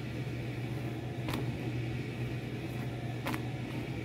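Steady low hum of a kitchen fan, with two brief clicks, about a second in and about three seconds in.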